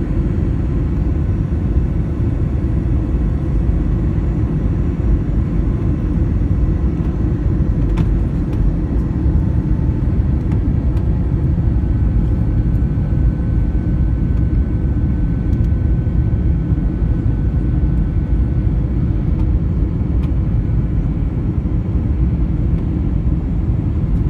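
Airbus A321 cabin noise in descent: a steady low rumble of engines and rushing air, with a faint click about a third of the way through.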